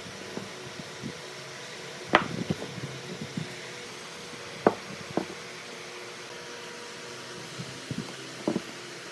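Solid wooden blocks knocking against each other and the bench as they are set down and pushed together: a few sharp clacks, the loudest about two seconds in, over a steady background hum.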